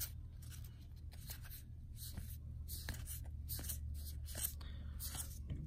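Magic: The Gathering cards sliding against one another as a handful from a booster pack is flipped through one card at a time, giving short papery swishes about once or twice a second over a steady low hum.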